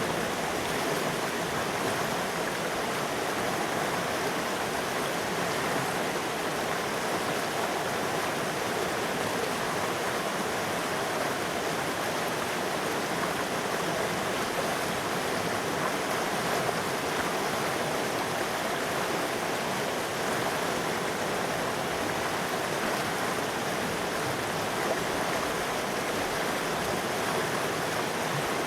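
River water flowing steadily over rocks, a constant even rush with no breaks.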